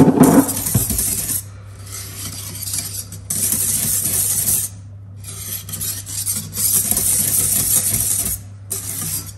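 Wire whisk stirring cake batter by hand in a stainless-steel stand-mixer bowl, scraping and swishing against the metal in several spells a second or three long with short pauses between. A loud knock comes right at the start.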